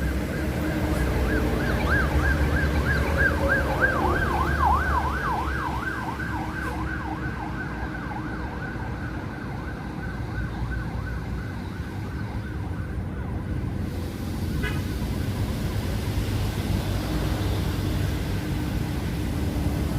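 Electronic emergency-vehicle siren yelping, its pitch rising and falling about four times a second, fading away over several seconds, over a steady low rumble.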